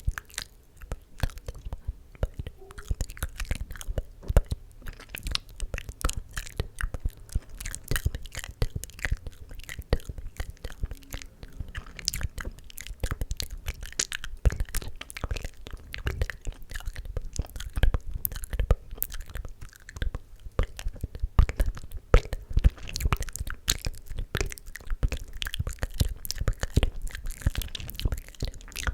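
Close-miked ASMR mouth sounds: a dense, irregular stream of wet clicks, pops and tongue smacks, with faint inaudible whispering.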